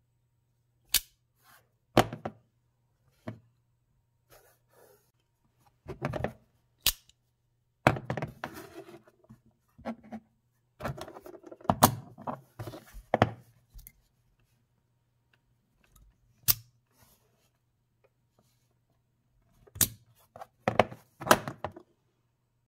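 Sharp mechanical snaps and clicks of a Grindworx Coffin Blaster 2.0 dual-action out-the-front knife, its spring-driven blade firing out and retracting as the slider is worked. About a dozen snaps come in scattered groups, with quieter handling rattles between them.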